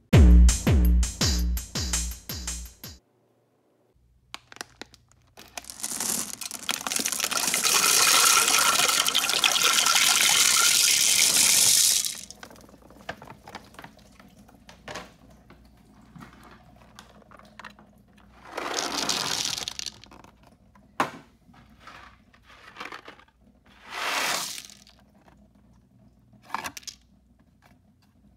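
A short musical sting, then peanut M&M's poured from the bag into a toilet bowl, the candies rattling against the porcelain for about six seconds before stopping suddenly. Later, two shorter pours of chocolate candy land on top, with scattered clicks between them.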